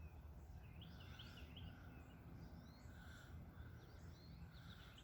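Faint low rumble with small birds chirping in short runs of quick high notes, a few times over.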